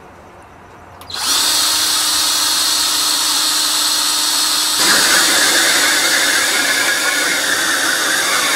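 Power drill spinning a hole saw through the thin metal lid of a mesh container. It starts about a second in and runs steadily. Near the middle it turns a little louder and harsher as the saw bites into the metal.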